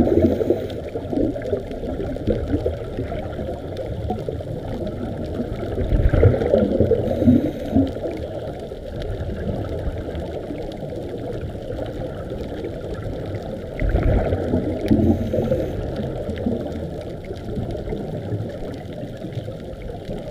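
Scuba divers breathing through regulators, heard underwater: muffled bubbling bursts of exhaled air three times, about seven seconds apart, over a steady low underwater noise.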